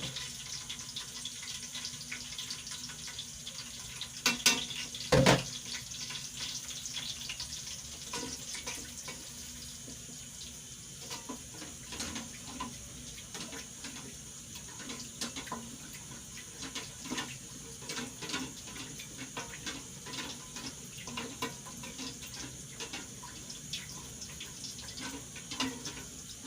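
Liquid conditioner mixture being stirred in a container, a steady watery swishing with frequent small scrapes and taps of the stirrer, and two louder knocks about four to five seconds in.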